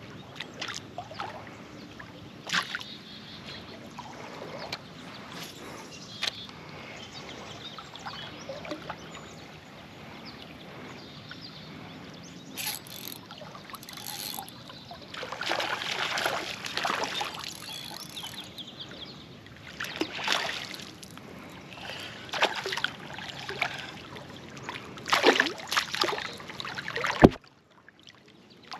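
River water splashing and sloshing in irregular spurts, with scattered knocks and handling noises and a sharp knock near the end.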